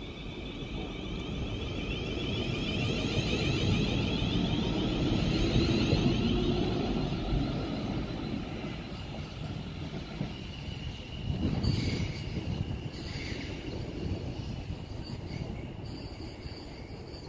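A Class 450 Desiro electric multiple unit accelerating away from the platform. Its traction equipment gives a whine of several tones that rise in pitch, over a low rumble of wheels on rail that builds for the first few seconds, then fades as the train leaves. There is a brief louder burst of rail noise about twelve seconds in.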